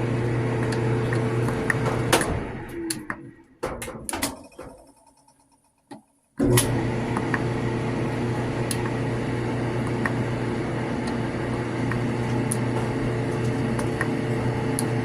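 Maytag clothes dryer running with a steady hum. About two seconds in it clicks off and winds down through a few knocks to near silence. It starts again abruptly after about six seconds and runs steadily.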